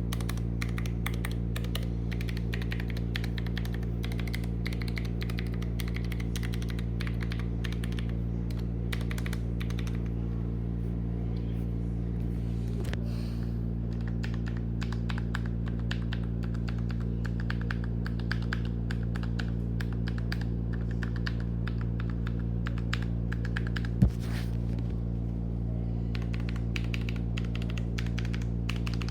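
Typing on a Redragon K621 Horus TKL ultra-thin mechanical keyboard with linear switches: quick runs of keystroke clacks with a few sparser stretches, over a steady low hum. One sharp, louder knock comes about 24 seconds in.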